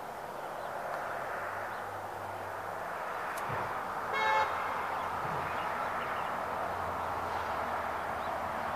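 Steady road traffic noise, with a short car horn toot about four seconds in that is the loudest sound.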